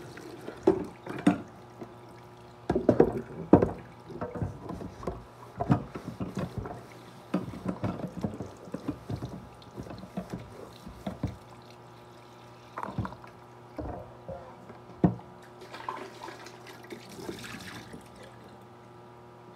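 Water running from a kitchen faucet and splashing over hands and into a plastic container as it is rinsed and filled, with irregular knocks and splashes of the container against the tap and sink. A faint steady hum runs underneath.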